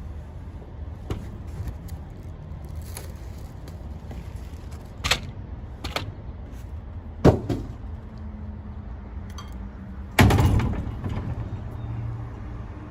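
Several sharp knocks and clicks of tools and parts being handled, the loudest about ten seconds in with a short ring after it, over a low steady rumble.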